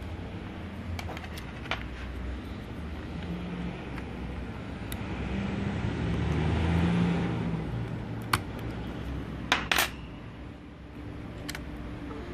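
Light clicks and metallic clinks as laptop internals (the heat-pipe heatsink and its bracket) are handled, with a louder pair of clicks near the end. There is a swell of rubbing handling noise about halfway, over a steady low hum.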